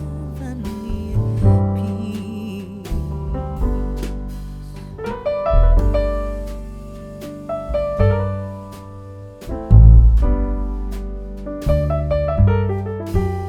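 Background music led by piano over a deep bass line.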